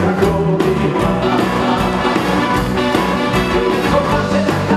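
Live Hasidic concert music from a band, with a quick steady beat under full instrumental backing.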